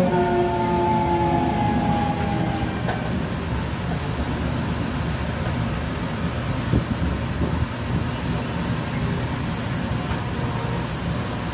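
373-series electric train heard from inside the passenger car: the traction motor whine slides down in pitch over the first two or three seconds as the train slows. A steady running rumble follows, with a few short knocks from the wheels and track.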